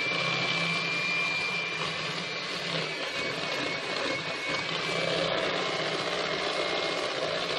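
Electric hand mixer running at a steady speed, its beaters whisking madeleine batter in a bowl: an even motor whine with a thin high tone held at one pitch.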